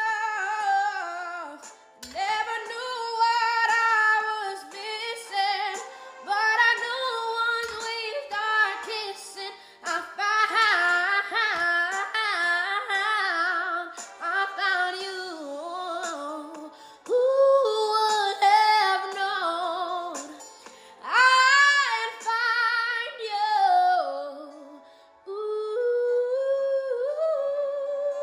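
A woman singing unaccompanied: long held notes with vocal runs and vibrato, in phrases broken by short pauses.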